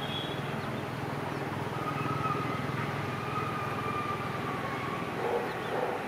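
EMD WDG-4 diesel locomotive approaching, its two-stroke V16 engine running as a steady low drone with a fast even pulse.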